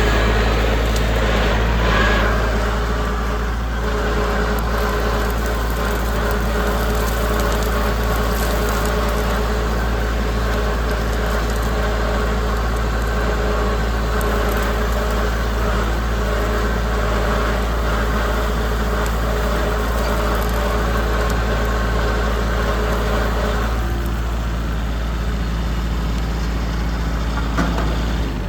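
Tractor engine running steadily under load while pulling a no-till drill, a continuous drone over a deep rumble. Part of the higher hum drops away a few seconds before the end.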